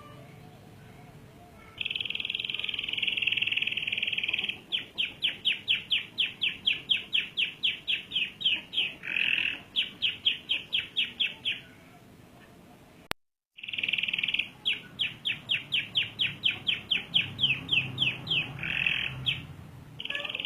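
Domestic canary singing a long roll: a steady buzzing trill, then a fast run of evenly repeated chirps at about four notes a second. After a brief gap just past the middle, the song starts over with the same buzzing trill and chirp run.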